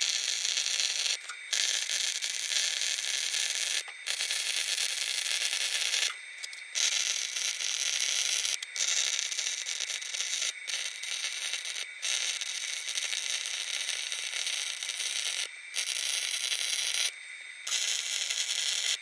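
Steel being cut with a power tool: a harsh, hissing scrape that stops briefly and starts again about seven times.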